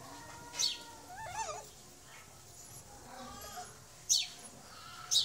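Street puppy whimpering: a short wavering whine about a second in, among a few brief, very high squeaks.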